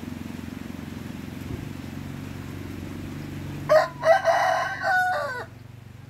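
A rooster crowing once, a single call of nearly two seconds that is the loudest thing here, over steady rain hiss.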